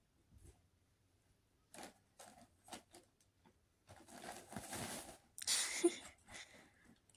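Kittens scrambling in a nylon pop-up cat tunnel. A few short rustles come first, then a longer, louder stretch of crinkling rustle about four seconds in.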